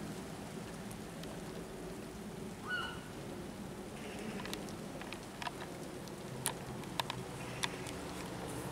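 Steady rain falling on grass and leaves, with sharp drip ticks in the second half as drops hit something close by. A single brief high call sounds about three seconds in.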